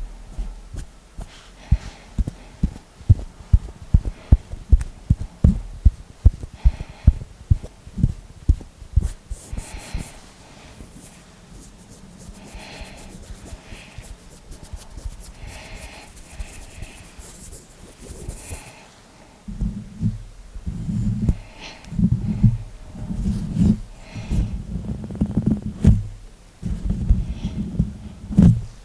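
Hand and finger sounds: a quick series of soft thumps, like taps or pats, for the first third. Then quieter light rustling, and from about two-thirds of the way in, repeated low rubbing swishes in short bursts.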